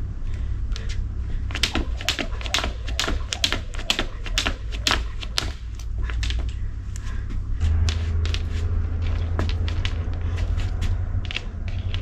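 Skipping rope slapping the ground in a quick, steady rhythm, about two to three slaps a second. After about six seconds the slaps turn sparser and fainter. A steady low rumble runs underneath and grows louder later on.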